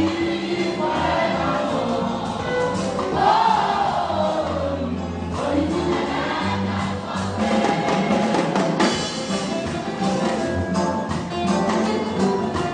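A large church choir singing a gospel song together, with instruments playing along under the voices.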